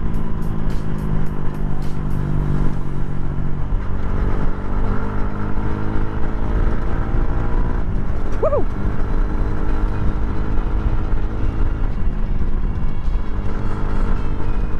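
Yamaha Sniper 150's single-cylinder four-stroke engine running under way, with wind rushing over the microphone; its tone shifts a few times as the rider works the throttle. A short rising-and-falling whoop comes about eight and a half seconds in.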